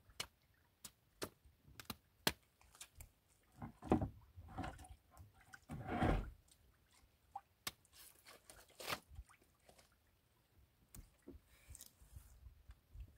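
A knife cutting and hacking into a tuna carcass on a boat deck: scattered sharp clicks and knocks, with two longer crunching scrapes about four and six seconds in.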